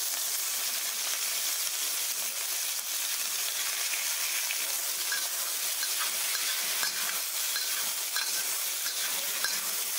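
Raw tiger prawns sizzling in hot oil in a wok, a steady high hiss. In the second half a wok spatula scrapes and clicks against the wok as the prawns are stir-fried.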